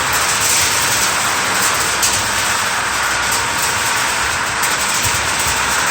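Commercial popcorn machine running with a steady, loud rushing noise.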